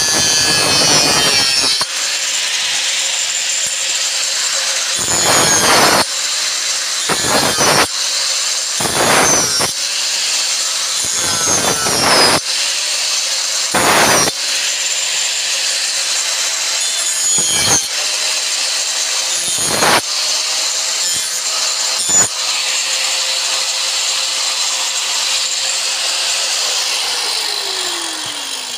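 Angle grinder with a cutting disc running at speed, a steady high whine broken by about eight short, harsher bursts as the disc bites into the wooden board along a curved line. Near the end the grinder is switched off and its whine falls away as it spins down.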